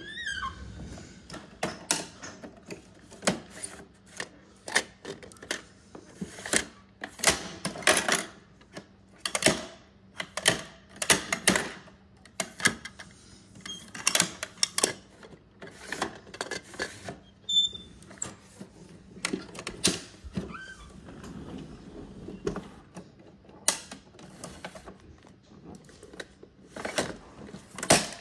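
Hard plastic clicks, clacks and knocks from a toy garbage truck's hand-worked lifting arm and small plastic toy bins being moved and set down on a hardwood floor, coming at an uneven pace.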